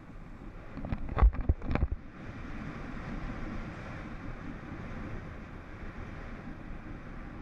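Snowboard sliding and carving over groomed snow, a steady scraping hiss with wind rushing over the camera's microphone. A few sharp knocks come between about one and two seconds in.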